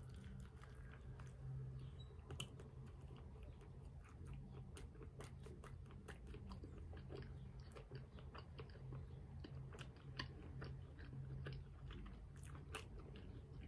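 A person chewing a mouthful of chicken sandwich close to the microphone: faint, scattered wet clicks and smacks over a faint low hum.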